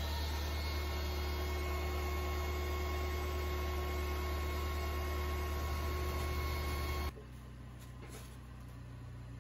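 Electric air pump running steadily as it inflates an air mattress, a loud, even hum that cuts off abruptly about seven seconds in, leaving a quieter steady background.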